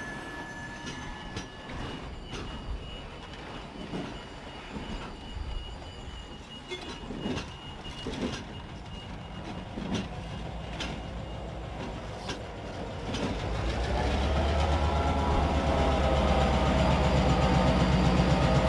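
Freight train passing: cars rolling with a thin high wheel squeal and scattered clicks of wheels over rail joints. About two-thirds of the way in, a diesel locomotive's engine sound grows louder and holds steady to the end.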